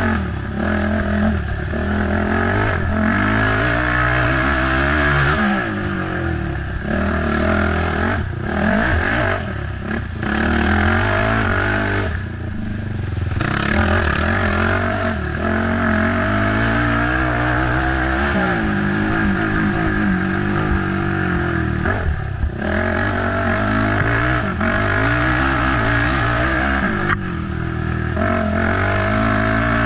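A race ATV's engine is run hard, revving up and down over and over through the gears, and the throttle is briefly chopped several times. Clattering and scraping from the machine is heard under the engine.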